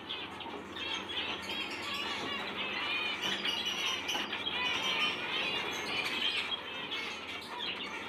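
Many zebra finches calling at once, a continuous chatter of short, rapidly repeated calls.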